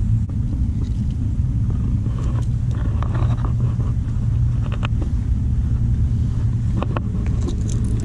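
Steady low rumble with a hum, like distant machinery or traffic, with a few faint rustles and clicks.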